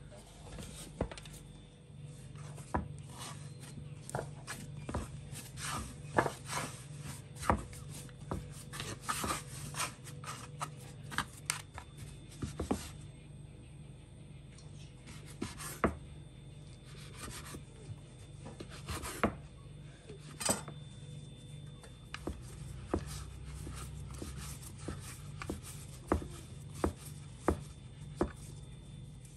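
Bread dough being cut with a knife and pressed by hand on a wooden cutting board: irregular sharp taps and knocks of the blade and hands on the board, with soft rubbing in between.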